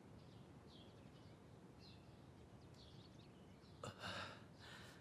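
A man drawing sharp, breathy gasps of pain about four seconds in, in two or three quick pulses, as the cut on his chest is touched. Faint small-bird chirps repeat steadily under an otherwise near-silent room.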